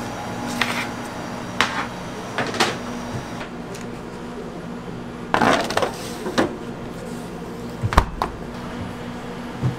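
Aluminium sheet pans clattering and scraping as they are handled and slid onto the wire racks of a stainless steel refrigerator, with a cluster of knocks about five seconds in. About eight seconds in the refrigerator door shuts with a sharp thump, the loudest sound, over a steady low hum.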